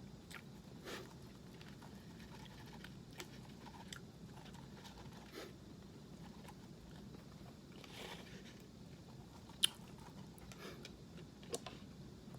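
Faint close-up chewing, with soft crunches and scattered sharp clicks; the sharpest click comes about three-quarters of the way through, and another comes near the end.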